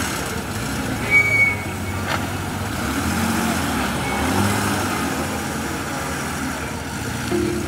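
Motor vehicle engine running in traffic, its pitch shifting slightly, with a brief high tone about a second in and a short click about two seconds in.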